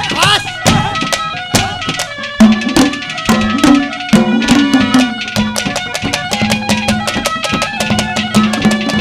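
Instrumental ragni folk music: fast, steady hand-drum rhythm, joined about two and a half seconds in by a held low note and sustained melody notes.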